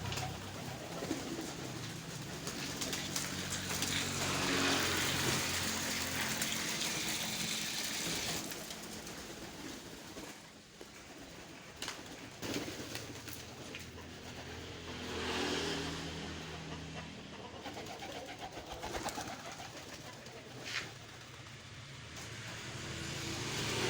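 Domestic pigeons cooing in low, repeated calls, strongest in the first several seconds and again about two-thirds of the way through, over a steady background noise.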